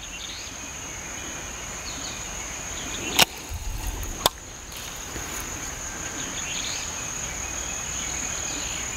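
A steady, high-pitched insect trill on one unbroken tone, with two sharp clicks about a second apart near the middle.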